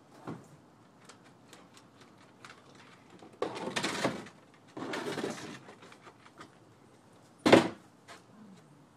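Dogs barking: a short bark at the start, two runs of rapid barking around the middle, and a single loud bark near the end.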